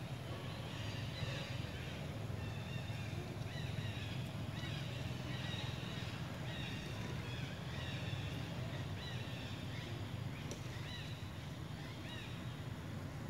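Short, high, arched chirping calls repeated about once a second over a steady low rumble.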